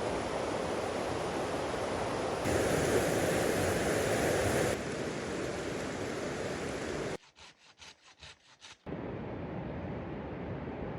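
Steady outdoor rushing noise in sections that change abruptly, louder for a couple of seconds early on, broken a little after seven seconds in by a quick run of about six short strokes, about four a second, before the rushing returns.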